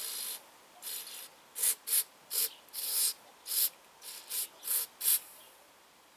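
Aerosol carburetor cleaner spraying through its straw onto carburetor parts to flush the jets. A longer hissing spray at the start, another about a second in, then a run of short bursts about every half second that stop about five seconds in.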